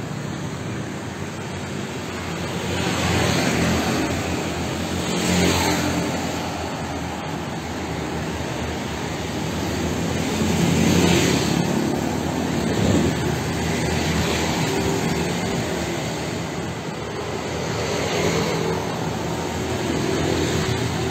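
Street traffic: cars and motorbikes going by one after another, each swelling and fading over a steady road hum.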